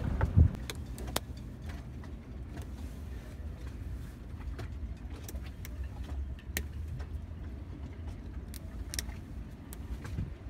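Small metallic clicks and ticks of a flat screwdriver prying apart the outer strands of a 5 mm steel wire rope, scattered and irregular over a steady low rumble. A louder thump comes just after the start.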